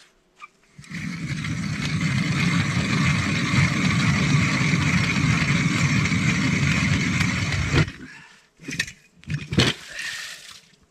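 Hand ice auger cutting through lake ice: a steady grinding crunch of the blades shaving ice for about seven seconds, then stopping suddenly. A few short scrapes and knocks follow as the auger is pulled up out of the hole.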